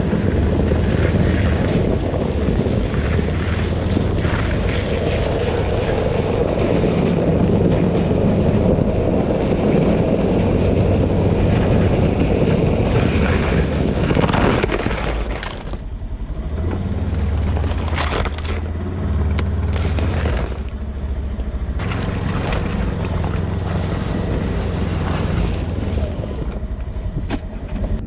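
UTV engine running while driving, with wind noise on the microphone. The engine's pitch steps up and down, and the wind noise eases about halfway through.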